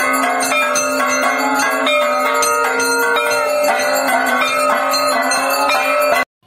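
Hanging brass temple bell rung by hand again and again, its strikes coming quickly so the ringing tones overlap into a continuous clangour. The ringing cuts off abruptly near the end.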